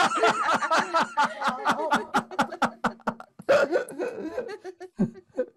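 Laughter after a punchline: a run of rapid ha-ha pulses, a louder burst about three and a half seconds in, then scattered chuckles trailing off.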